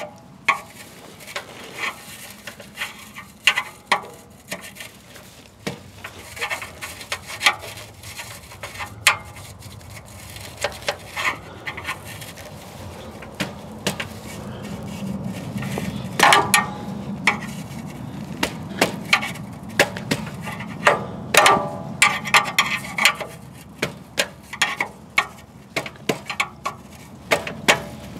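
Screwdriver tip clicking, tapping and scraping against a loose exhaust heat shield around a catalytic converter as metal wool is packed into its gaps. The irregular clicks come faster in the second half.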